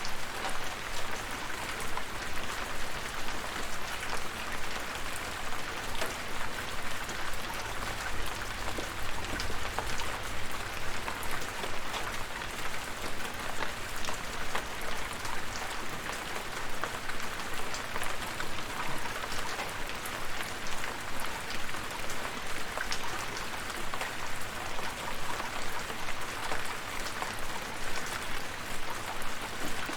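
Steady rain, with many individual drops heard as small ticks over an even hiss.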